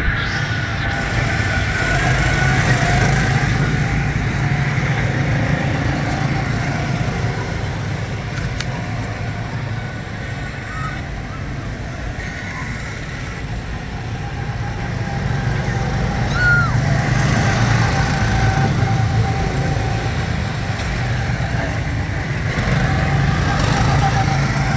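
Go-kart engines running as the karts lap the track, the hum swelling and easing with speed.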